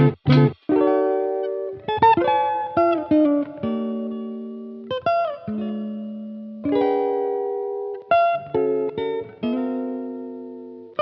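Background music: a gently plucked electric-guitar melody, notes and chords ringing out and fading slowly.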